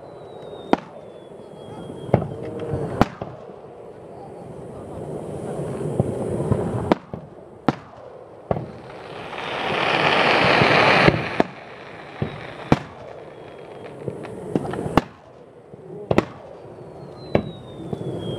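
Aerial firework shells bursting, a string of sharp booms at irregular intervals, about a dozen in all. There is a louder stretch of rushing noise for about two seconds around the middle.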